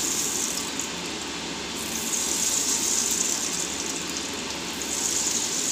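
Hot oil sizzling steadily in a frying pan, with a brighter hiss at the start and again near the end.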